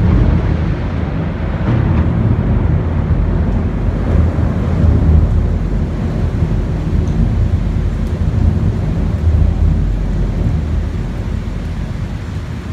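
Long roll of thunder from a close lightning strike: a loud, deep rumble that keeps rolling, swelling and easing in waves and slowly dying down near the end.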